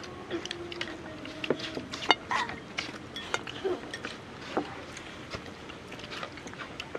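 Chopsticks and spoons clicking against porcelain rice bowls and plates during a meal: many light, irregular taps and clinks.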